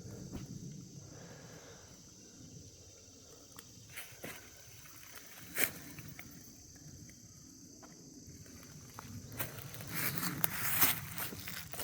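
Footsteps through dry brush and leaf litter: a few scattered twig snaps and crunches, then steady crunching and rustling of walking through undergrowth that gets louder near the end.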